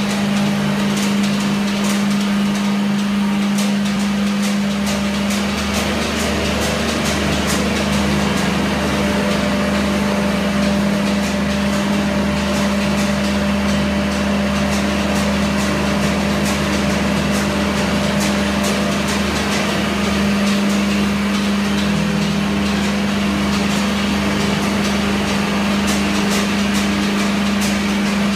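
Forced-convection hot-air cashew roasting line running: a loud, steady machine drone with one strong low hum, with frequent light ticks and rattles as cashews tumble through the machinery.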